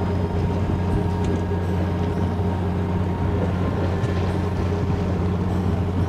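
Steady low drone of a fishing boat's engine running, even and unchanging.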